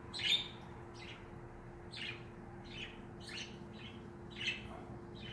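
Pet birds chirping: short, high chirps every second or so, with a quick run of three a little past three seconds in.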